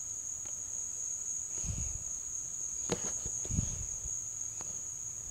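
Steady high-pitched trilling of insects, with a few soft knocks and thumps of the phone being handled about two, three and three and a half seconds in.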